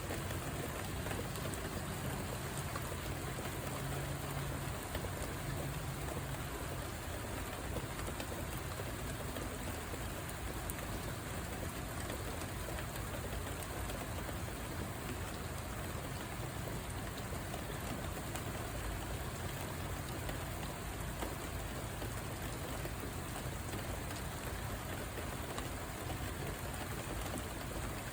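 Steady rain falling, an even hiss with scattered drops striking surfaces. A faint low hum sits under it in the first several seconds.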